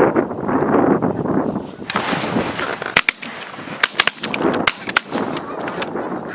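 A flock of Canada geese honking as they come in over decoys, broken about three seconds in by a rapid volley of about ten shotgun shots from several hunters, fired in quick pairs and singles over about three seconds.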